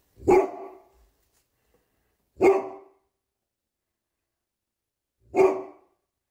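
A dog barking: three single loud barks spaced two to three seconds apart.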